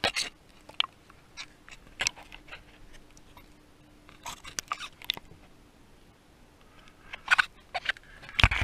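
Scattered small clicks and splashes of a hand moving in a plastic bucket of water, with a couple of louder knocks near the end.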